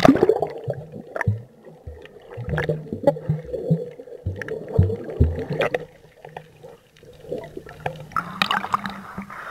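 Underwater sound from a snorkeler's camera: muffled water gurgling and sloshing with irregular low thumps from swimmers' movements. The sound grows brighter and more splashy near the end.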